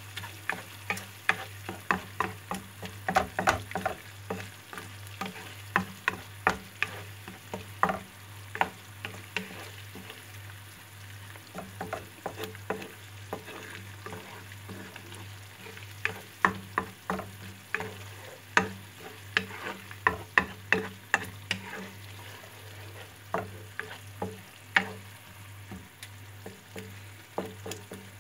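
Wooden spatula stirring chili sauce frying in a deep nonstick pan, knocking and scraping against the pan in quick runs over a steady sizzle. The knocks thin out for a few seconds midway, then pick up again.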